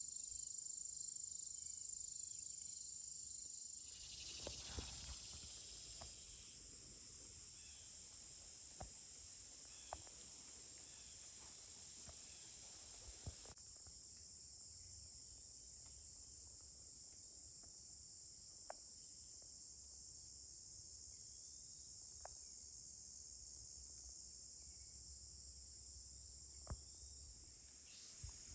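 Faint, steady high-pitched chorus of insects, with a few soft ticks and snaps scattered through it.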